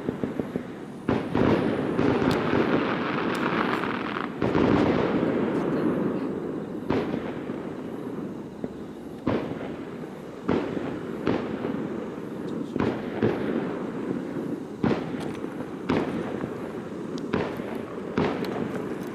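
Fireworks display: aerial shells bursting with sharp bangs every one to two seconds, over a dense rumble of overlapping bursts that is heaviest in the first few seconds.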